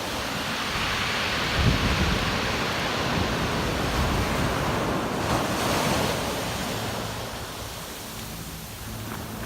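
Pacific Ocean surf: a wave swells up and washes in, then fades away after about six seconds, with wind buffeting the microphone.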